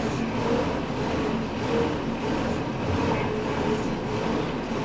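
Wattbike's air-resistance fan flywheel being pedalled hard: a steady rushing whir with a faint hum running under it.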